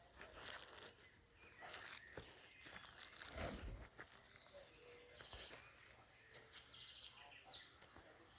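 Small birds calling faintly outdoors: a run of short, high, sweeping chirps, then a quick rattling trill near the end, over a soft background hiss.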